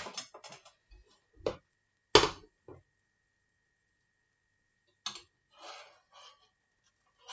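Scattered clicks and knocks of kitchen utensils against a frying pan and counter, the loudest a sharp knock about two seconds in. After a short quiet stretch come a few soft scraping sounds.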